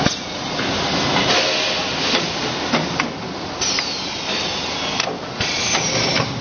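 Bottle shrink-wrapping machine running with a steady rushing hiss, broken by sharp mechanical clicks and knocks every second or so from its conveyor and film-sealing mechanism. A loud click at the start comes as its control button is pressed, and two short falling squeaks follow later.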